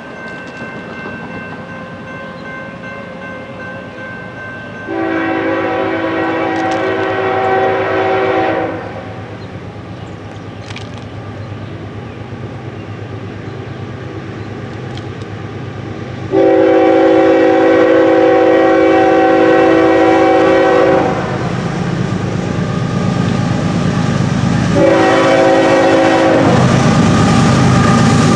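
Norfolk Southern GE ES44AC diesel locomotive approaching and sounding its air horn in the grade-crossing pattern: two long blasts, a short one, then a long one. Each is louder than the last, and the low rumble of the engine and wheels builds toward the end.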